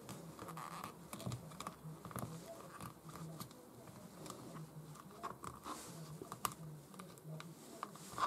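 Small knife cutting black licorice on a plastic cutting board: irregular light clicks and taps of the blade and the pieces against the board, with a sharper tap near the end.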